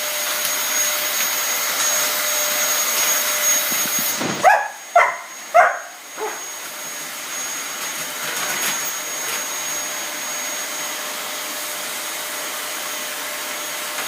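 Vacuum cleaner running steadily with a motor whine, and a dog barking three short times in quick succession about four seconds in.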